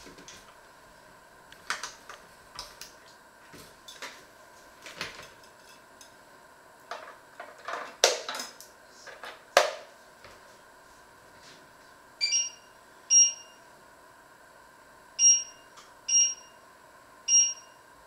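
Knocks and clatter of kitchen utensils and pots being handled, with two sharper knocks a little past the middle. From about two-thirds of the way in, short electronic appliance beeps sound about a second apart, six in all.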